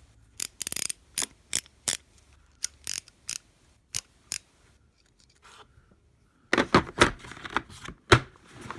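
Sharp clicks and clacks from handling a Stanley mechanics tool set's metal tools and its plastic case, about three a second. After a short pause, a louder cluster of clacks comes near the end.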